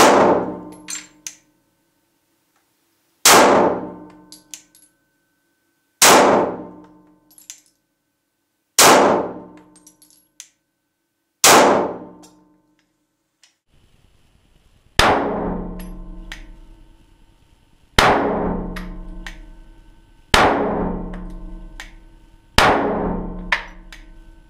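Glock 17 Gen 1 9 mm pistol firing slow, deliberate single shots, about one every three seconds: five shots, then four more after a slightly longer gap. Each shot echoes off the concrete walls of an indoor range.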